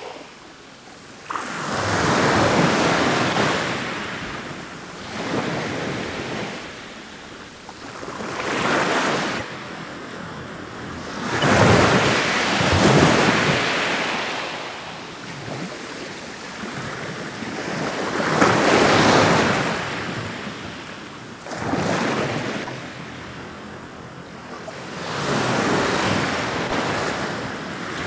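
Ocean waves breaking and washing in, rising and falling in slow surges every few seconds.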